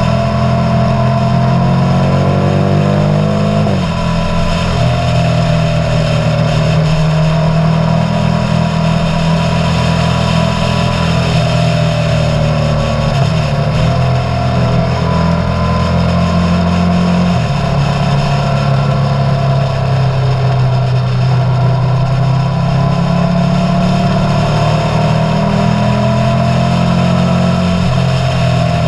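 Motorcycle engine running continuously, its pitch rising and falling with sudden steps about four seconds in and again around seventeen seconds in.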